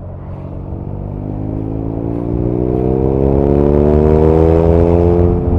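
BMW R nineT's 1170 cc air/oil-cooled boxer twin accelerating hard in one gear, its exhaust note rising steadily in pitch and getting louder for about five seconds, with wind noise building. Near the end the revs drop off suddenly as the throttle is closed.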